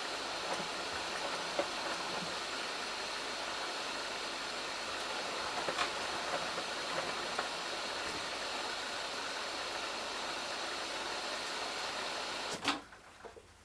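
Samsung Eco Bubble washing machine early in its cycle, with a steady hiss of water running in and a few faint ticks. Near the end a sharp click sounds and the hiss cuts off suddenly.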